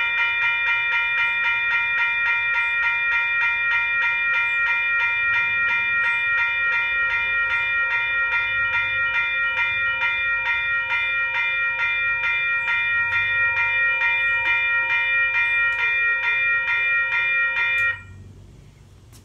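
Western-Cullen-Hayes electronic railroad crossing bell ringing in rapid, even strikes with a steady metallic gong tone. It cuts off suddenly near the end.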